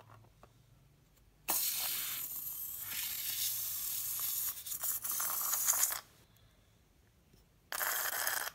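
Air and clear slime hissing and spraying out of a snipped, squeezed rubber balloon: one long sputtering hiss of about four seconds that cuts off abruptly, then a shorter burst near the end.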